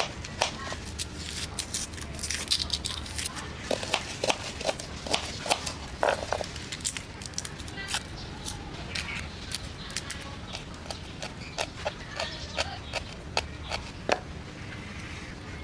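Food-prep sounds on a plastic cutting board: irregular sharp knife clicks and taps as a carrot is sliced, and dry crackling as garlic and onion skins are peeled with a small knife.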